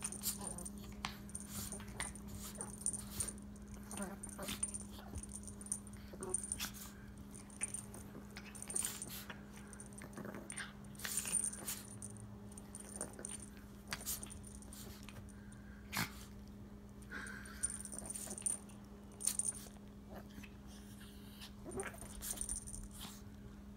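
Two small dogs, one a Chihuahua, play-fighting: brief growls and whines over a string of quick, sharp snaps and scuffles.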